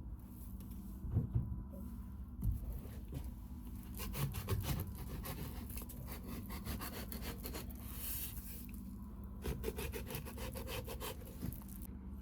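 Knife sawing and scraping through fruit, with a few sharp knocks early on, then a long run of quick rasping strokes.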